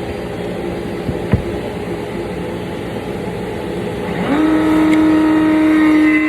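Router motor on a router table spinning up about four seconds in, its whine rising and then holding at a steady high pitch, over a steady machine hum. A single sharp click a little after one second.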